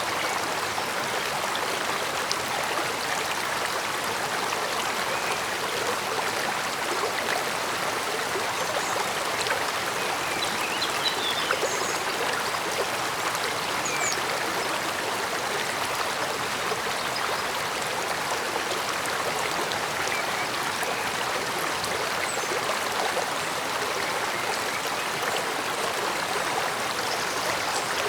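Stream water flowing steadily, an even, unbroken murmur of running water.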